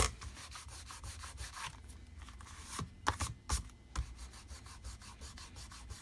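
Hands rubbing and handling paper, a sharp tap at the very start, then scattered light scrapes and taps, with a few louder ones about three to four seconds in.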